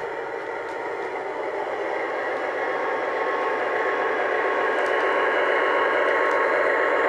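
Lionel O-gauge Alco S4 switcher locomotive running around the track: a steady whirring rumble of motor and wheels on rail that grows gradually louder as it nears.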